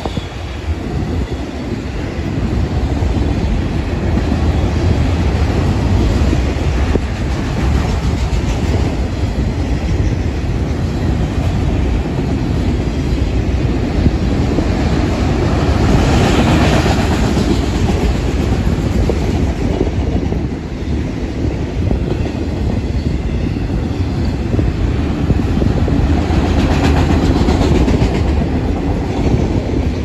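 Autorack freight cars rolling past close by: a steady rumble of steel wheels on rail with clickety-clack over the rail joints. The noise swells and brightens about halfway through and again near the end.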